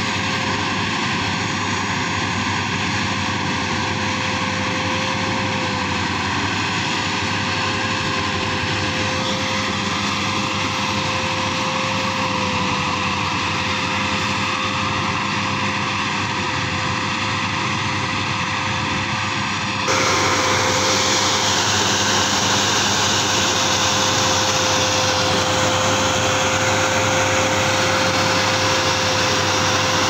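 Bimo rice combine harvester running steadily, a constant mechanical drone with one steady tone through it. About two-thirds of the way in it turns abruptly louder and closer.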